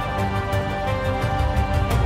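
Background music for a documentary score: held notes over a steady low pulse with regular light percussion hits.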